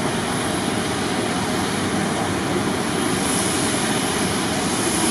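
Jet airliner engines running, a steady noise with a thin high whine above it that grows slightly louder in the second half.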